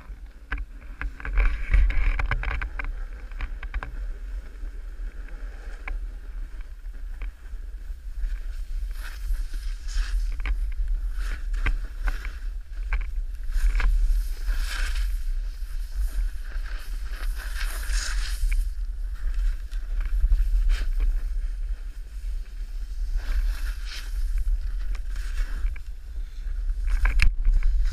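Wind buffeting the microphone during a snowboard run, with the hiss and scrape of the board sliding over snow swelling and fading as the rider turns.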